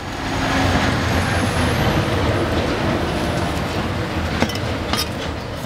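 Steady engine and road noise of a passing motor vehicle, with two knocks of a cleaver on a wooden chopping block near the end.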